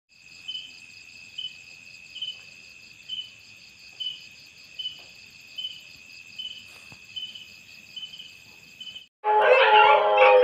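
Crickets and other night insects trilling steadily, with a louder chirp repeating a little faster than once a second. About nine seconds in, after a brief break, loud dog howling starts and carries on.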